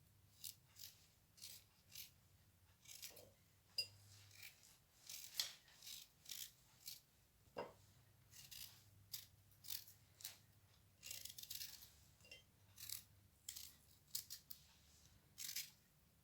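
Faint, repeated short scrapes of a blade peeling the skin off a raw turnip, irregular strokes about one or two a second.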